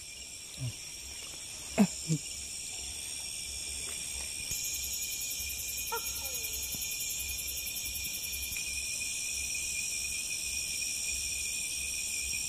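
Steady high chorus of night insects, crickets among them, with a faster, higher pulsing trill joining for a few seconds in the middle. Two brief low sounds stand out about two seconds in.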